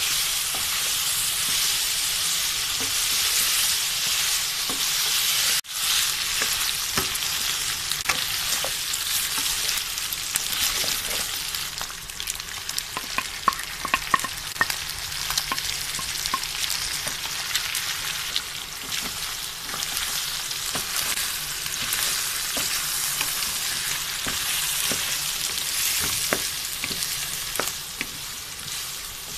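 Beef chunks sizzling in hot oil in a nonstick pan, stirred with a wooden spatula that gives short taps and scrapes against the pan. The sizzle drops out suddenly for a moment about six seconds in.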